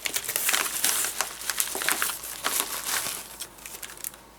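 Plastic packaging crinkling and rustling as it is handled and pulled open, in a dense run of crackles that thins out near the end.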